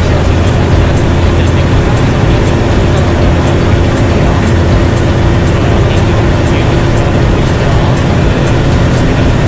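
Light aircraft's piston engine and propeller droning steadily in cruise flight, heard inside the cockpit over a constant rush of wind.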